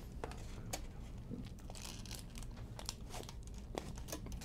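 Aluminium foil wrapper crinkling as hands work it around a wrap, in faint scattered crackles, a little denser about two seconds in.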